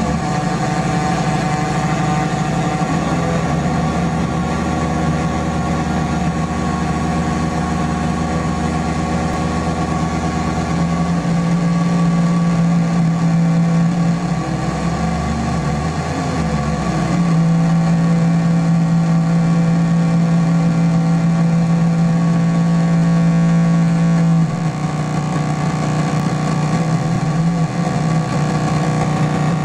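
Homemade square-wave oscillator noise synth built from a Parade Parasite kit, played by hand: a loud, dense buzzing drone of stacked tones. It jumps to a new set of pitches abruptly about 11, 17 and 24 seconds in.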